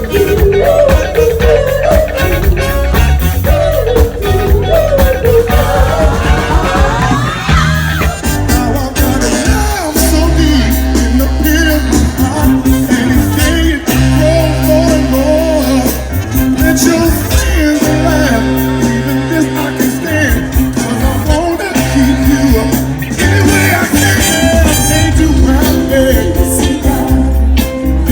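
A live band playing a Motown song, with singing over a steady bass line and drums.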